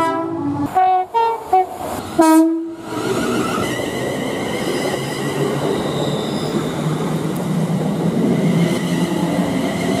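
Several short, loud blasts of a diesel locomotive's two-tone horn in quick succession over the first three seconds, then an electric multiple unit running along the platform with a steady rumble and a faint high motor whine.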